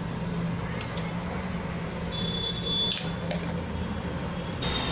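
Steady low hum and hiss of a gas stove burner heating a steel pot of water, with a few light clicks. A high, steady beep-like tone sounds briefly in the middle and starts again near the end.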